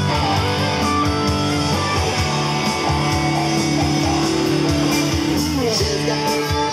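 Live band playing: electric guitar over bass and drums, with a long held guitar note that slides down in pitch about five seconds in.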